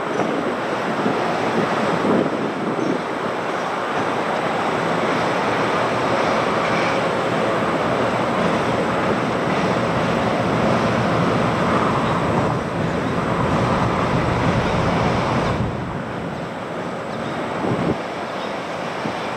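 Train of hopper cars rolling along a steel girder bridge, giving a steady rushing rumble of wheels on rail that eases slightly near the end, with some wind on the microphone.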